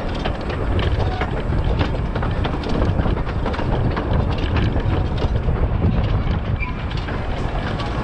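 Ride-along sound aboard a 1920 Albert Barnes 4-4-2 15-inch-gauge steam locomotive and its train running on the track: a steady low rumble with wind buffeting the microphone and irregular clicks from the wheels and running gear.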